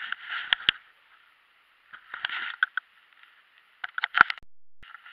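Rustling and handling noise on the camera, in three short bursts with sharp clicks, as a freshly caught small sunfish is held up and handled.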